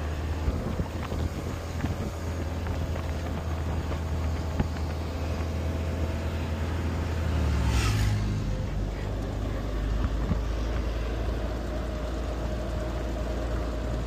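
Cab-over truck's engine running while driving, heard inside the cab with road and wind noise. About eight seconds in the engine note changes, along with a short hiss.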